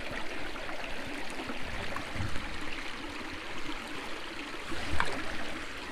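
Steady rush of running water, with a few faint knocks.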